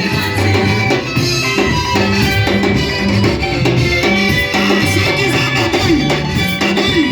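Live band playing an upbeat instrumental passage with a drum kit, bass and guitar, in a steady danceable rhythm.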